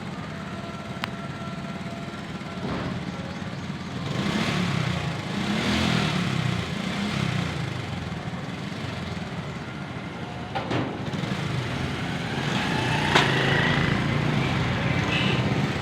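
A motor running steadily in the background, with its low drone wavering and swelling louder twice, plus a few sharp clicks.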